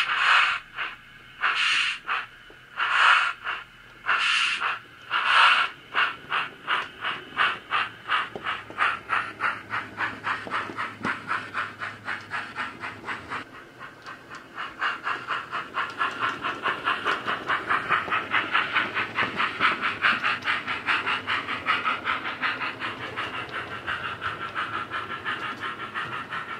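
Steam-locomotive sound from a Wheeltappers DCC sound decoder in a Hornby GWR Dean Single model, played through its sugarcube speaker. The exhaust chuffs start long and hissy, about one a second, and quicken to several a second as the locomotive gets under way. Midway the sound grows fainter for a moment, then louder again.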